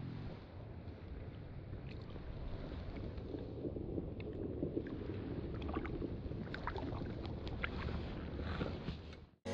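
Soft water lapping and small splashes around a float tube as a trout is let back into the lake by hand, with scattered faint clicks and rustles of handling.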